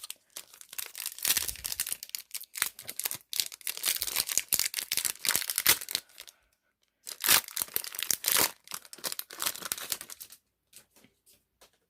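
A pack of 2019 Panini Phoenix football cards being torn open, its wrapper tearing and crinkling in two spells with a short pause between. A few light taps and rustles follow near the end.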